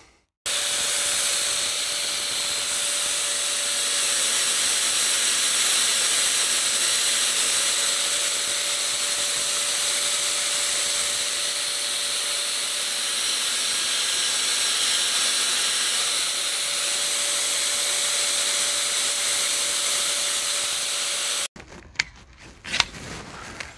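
Bench belt sander running steadily while the rifle's charging-handle block is held against the belt to sand it down. The sound is an even hiss with a faint steady hum, and it cuts off abruptly near the end.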